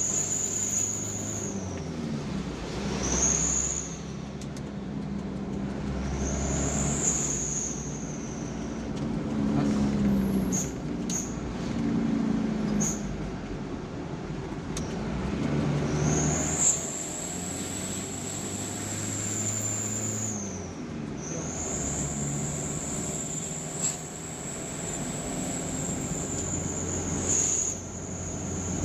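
A road vehicle's engine running while driving, its low note stepping up and down as the speed changes. A high whine rises and falls in long sweeps several times over it.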